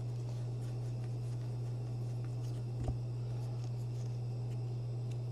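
Faint sliding and rustling of football trading cards flipped through by hand, over a steady low hum, with one small tick about three seconds in.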